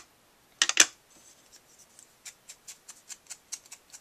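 Sponge dabbing white craft ink from an ink pad onto the edges of small punched black cardstock pieces: a brief cluster of louder clicks and knocks under a second in, then soft, quick taps at about four a second.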